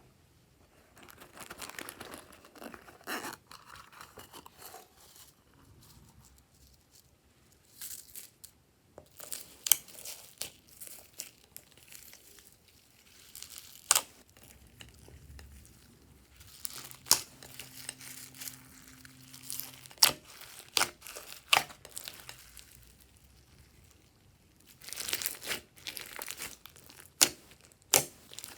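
Glossy slime being worked by hand, with sticky crackling and tearing sounds and scattered sharp clicks and pops. The crackling is densest about two seconds in and again near the end.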